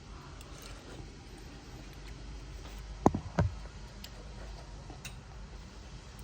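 Two short knocks of a spoon against a soup bowl, about a third of a second apart, over a low steady background.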